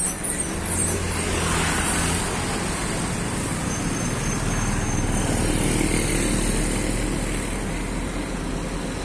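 Tour bus engine running with road and traffic noise, a low engine hum growing stronger about halfway through. A faint, brief high whistle sounds around four seconds in.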